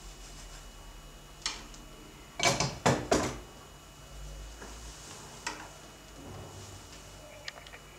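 Kitchen clatter of dishes and fittings being handled: a single knock about a second and a half in, then a quick run of loud clatters and knocks around the three-second mark, with fainter knocks later on.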